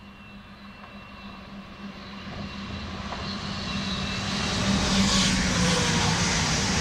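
Chiltern Railways Class 168 diesel multiple unit approaching and passing under a bridge. Its diesel engine hum and the rush of its wheels on the rails swell steadily, loudest about five seconds in.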